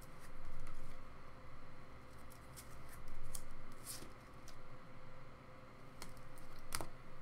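A sleeved trading card being pushed into a clear plastic card holder: plastic rubbing and scraping with a handful of sharp ticks, the sharpest near the end.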